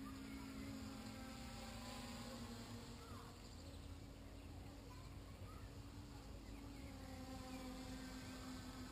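Motors and propellers of a small quadcopter buzzing steadily in flight, heard from the camera on board, the pitch drifting slightly as the throttle changes.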